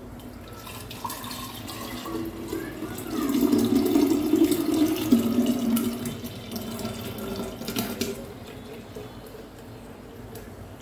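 Thick date-and-almond milkshake poured from a blender jar into a glass pitcher, a steady splashing stream of liquid filling the jug. It builds over the first seconds, is loudest in the middle, and thins out near the end.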